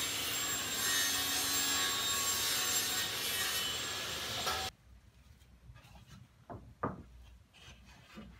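Putsch Meniconi vertical panel saw cutting through a wooden panel: a loud, steady sawing noise that cuts off suddenly a little under five seconds in. After it, a few light knocks of wooden boards being handled on a workbench.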